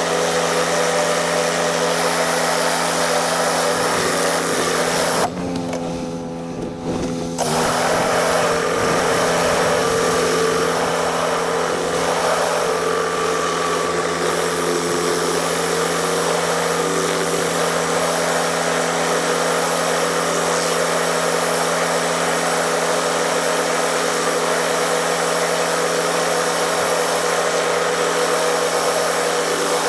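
Pressure washer running steadily, its engine drone under the hiss of the spray. About five seconds in the hiss drops away for about two seconds while the engine keeps running, then the spray comes back.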